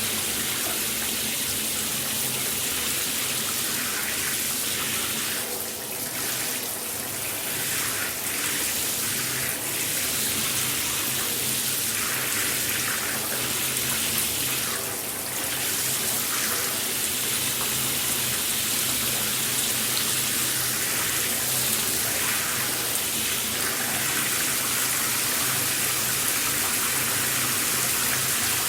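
Running shower spraying water steadily, a constant hiss of water falling, dipping briefly a couple of times.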